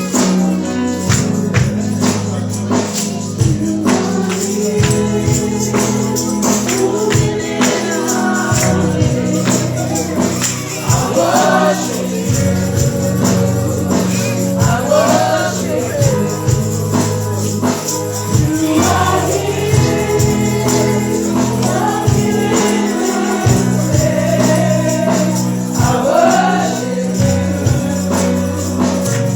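Congregational gospel singing with a band and tambourine: voices singing a praise song over a steady bass line and beat.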